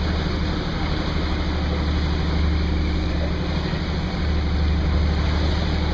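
Passenger boat's engine running steadily under way, a low drone with wind and water rushing past.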